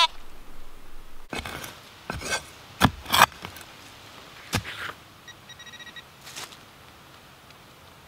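Small digging shovel chopping and scraping into the forest floor: half a dozen short, sharp strokes, loudest around three seconds in. Near the middle, after the strokes, a faint steady electronic beep sounds for under a second.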